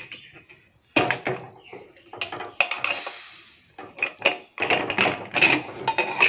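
Metal clanks, clicks and knocks of a pressure cooker's lid being handled and opened, with a denser run of clatter in the second half.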